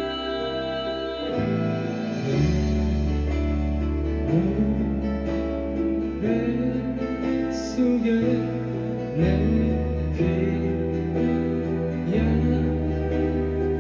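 Live band music: a pop ballad with guitar over a steady bass line, from a concert recording.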